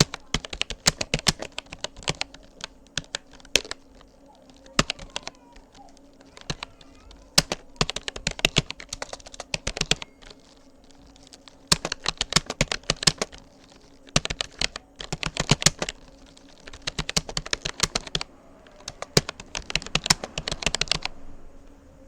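Fast touch-typing on a Rapoo computer keyboard: rapid runs of key clicks in bursts of a few seconds, with brief pauses between them. The typing stops about a second before the end, and a faint steady hum runs underneath.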